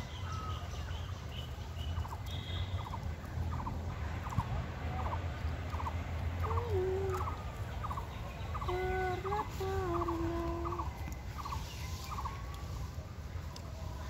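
Repeated short rattling animal calls, about one a second, with a few longer, lower drawn-out calls around the middle, over a steady low rumble.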